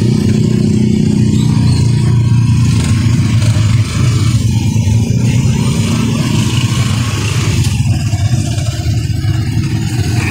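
Motorcycle engine of a tricycle running steadily as it drives along, heard from inside the passenger sidecar with road noise.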